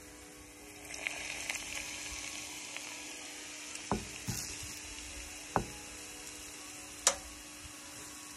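Hot olive oil sizzling over freshly minced garlic and salt in a small bowl, a steady hiss that grows louder about a second in, with sharp spitting crackles. Two dull knocks come midway.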